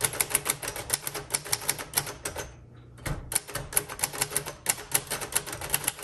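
1958 Royal Aristocrat manual typewriter being typed on at a steady pace, its type bars clacking against the platen several times a second. The typing stops for about half a second partway through, with a low thud, then carries on.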